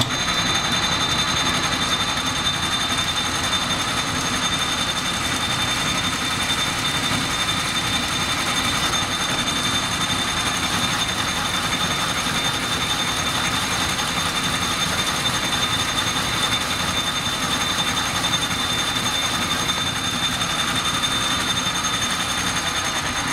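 Small metal lathe running steadily as its chuck spins a brass bushing under the cutting tool, a constant mechanical whir with a steady high whine.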